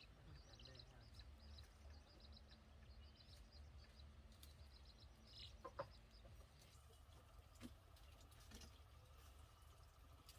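Faint bird chirping: a quick run of short, high chirps in the first few seconds, then a single short call about six seconds in, over a low, quiet rumble.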